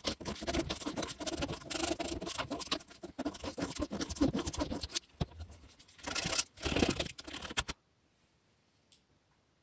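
Irregular scratching and scraping of a hand tool working wood, with many quick sharp strokes, stopping abruptly about three-quarters of the way through.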